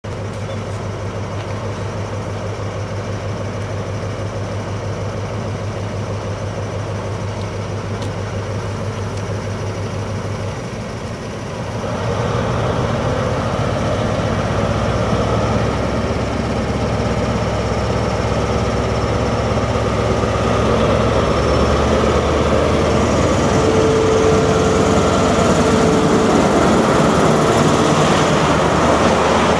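Class 43 HST power car's MTU diesel engine idling with a steady low hum, then revving up about twelve seconds in as the train pulls away, growing louder as the power car draws past.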